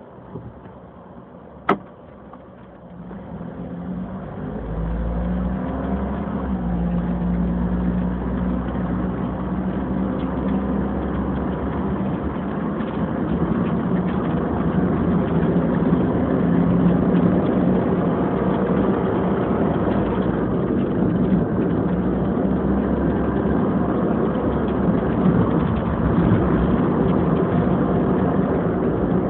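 Car interior noise recorded inside the cabin: the car sits quietly at first, with one sharp click about two seconds in. It then pulls away with the engine note rising as it speeds up, and settles into steady engine and road noise.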